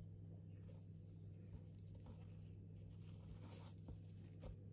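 Faint rustling and crackling of damp moss being pulled apart and spread by hand in a plastic container, over a steady low hum.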